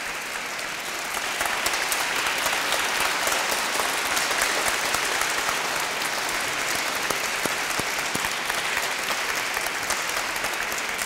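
Audience applauding, a dense patter of many hands clapping that swells about a second and a half in and keeps going.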